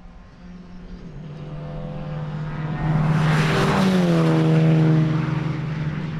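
Race car approaching at speed, its engine growing steadily louder, then its note dropping in pitch as it passes by about four seconds in.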